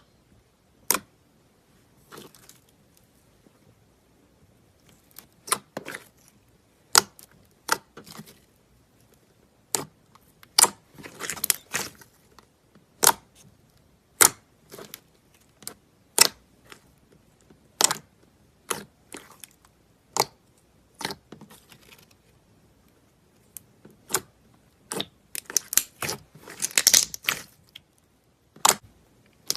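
Metallic slime being squeezed and poked by hand, giving many sharp clicks and pops, with a longer stretch of crackling about eleven seconds in and again near the end.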